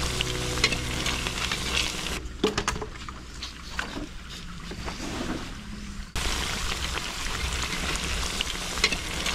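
Fritters deep-frying in a skillet of hot oil, a steady sizzle with fine crackles. It drops to a fainter background for about four seconds in the middle, then the sizzling comes back.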